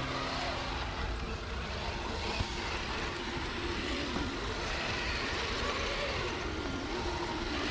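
Steady whirr of small electric motors, its pitch wavering up and down, with one short tap about a third of the way through.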